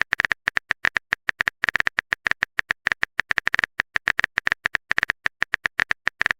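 Phone keyboard typing sound effect: quick, uneven clicks, several a second, as a text message is typed out.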